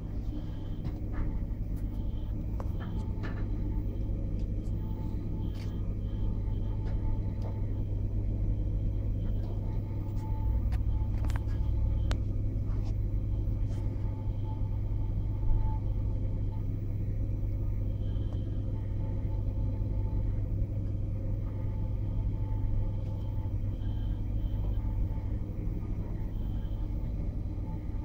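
Hermetic compressor of a commercial refrigerated cabinet running with a steady low hum, with scattered light clicks and knocks over it.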